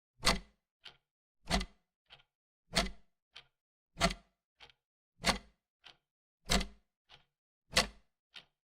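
Wall clock ticking steadily: a loud tick and a softer tock alternate, a little over half a second apart.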